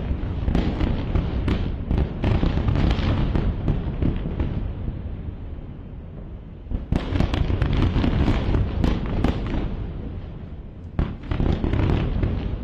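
Airstrike explosions heard across a city: a heavy blast with sharp cracks and a long rumble, then fresh bursts of cracking and rumbling about seven seconds and eleven seconds in. The sound cuts off abruptly at the end.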